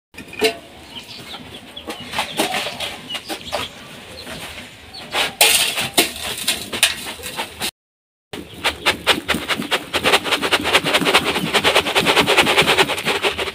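Dry sand being poured from a plastic basin into an aluminium cooking pot, many grains pattering and rattling on the metal. The pattering is densest and most rapid in the last few seconds. The sand is being loaded into the pot to be preheated as a makeshift oven.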